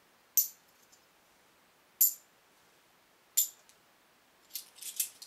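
Metal coins tossed one at a time into a palm, each landing with a sharp ringing clink on the coins already there: three clinks about a second and a half apart. Near the end comes a quick jingle of several lighter clinks as the coins chink together in the hand.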